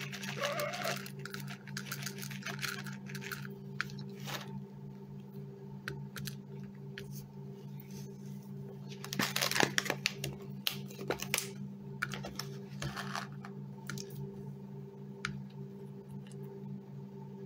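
Dried chicken treats rattling out of a foil pouch into a bowl, then a hen pecking at them: scattered sharp taps against the bowl, with a denser burst of tapping and rattling about nine to ten seconds in. A steady low hum runs underneath.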